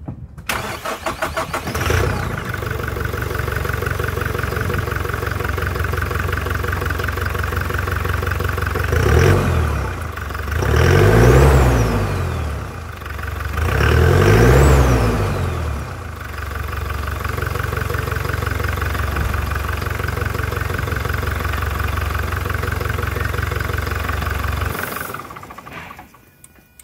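Toyota Hilux engine cranked over by the starter for about two seconds, catching and settling into a steady idle. Near the middle it is blipped once and then revved up and back down twice, then it idles again until it is switched off about a second before the end.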